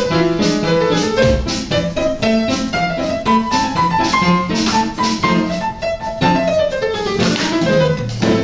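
An upright piano and a drum kit played together: a run of piano notes over drumming, in a binaural recording.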